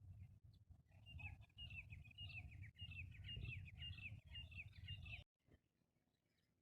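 Black francolin calling faintly: a run of quick, falling chirps, about three a second, starting about a second in and cutting off suddenly about five seconds in, over a low rumble.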